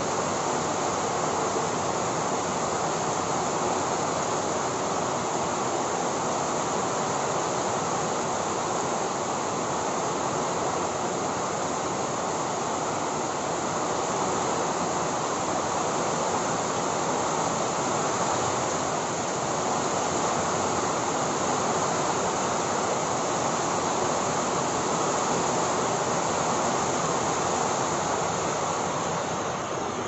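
Heavy monsoon rain pouring steadily onto trees and foliage, a dense, even hiss with no let-up.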